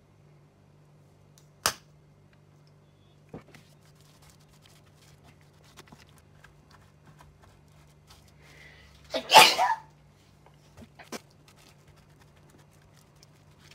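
A few sharp clicks and knocks of a spice bottle and chopsticks against a plastic food container as the food is seasoned and stirred, over a faint steady hum. About nine seconds in comes a short, loud rush of noise, the loudest sound.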